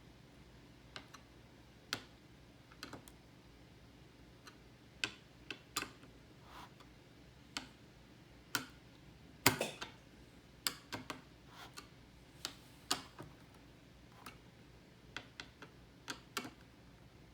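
Irregular small clicks and light knocks of CPU cooler mounting brackets and screws being handled and fitted onto a motherboard, with one sharper knock about halfway through.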